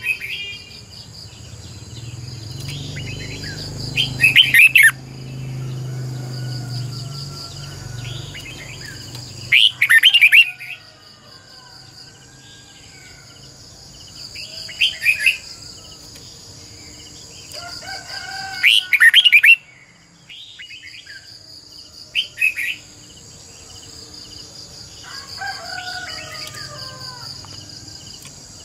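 Red-whiskered bulbul singing: short, loud, rapid song phrases every four to five seconds, with softer whistled notes in between.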